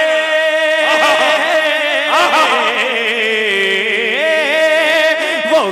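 A man singing a naat: a long melismatic run with a wavering, ornamented pitch, over a steady held note.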